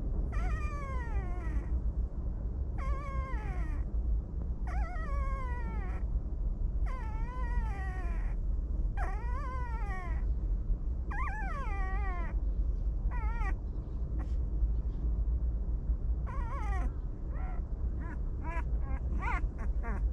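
Puppies whining and crying: a string of drawn-out high calls about a second long, rising and falling in pitch, one every second or two, turning into shorter, quicker cries near the end. A steady low rumble runs underneath.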